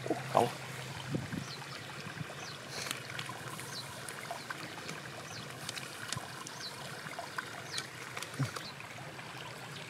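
Small fish flopping on dry grass and pine needles: faint scattered rustles and light ticks over a steady hiss, with a couple of louder rustles in the first half-second.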